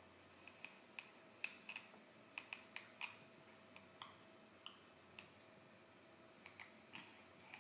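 Teeth grinding: faint, sharp clicks at uneven spacing, about two or three a second.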